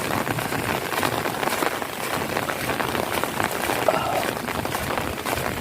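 Heavy rain falling on puddles and waterlogged ground: a steady hiss dotted with many small splashing drops.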